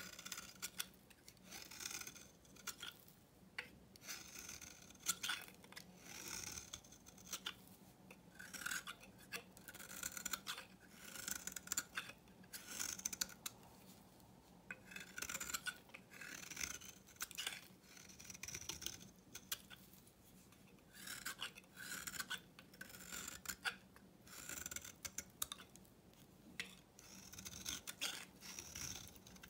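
Snap-off utility knife blade shaving curls off the face of an old bar of Svoboda soap, in runs of short scraping strokes with brief pauses between them.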